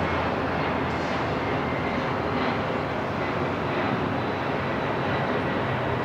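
Steady airport ambience: a continuous even rush like distant jet aircraft engines, with a faint thin high whine held underneath.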